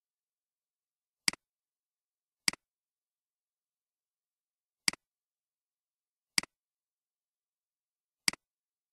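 Computer mouse button clicked five times at uneven intervals, each click a sharp double tick of the button pressing and releasing, with silence between.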